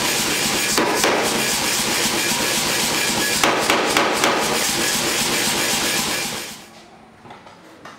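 Hammer blows on red-hot steel as the end of a bar is flattened in a die block, a dense run of metallic strikes that stops suddenly about six and a half seconds in.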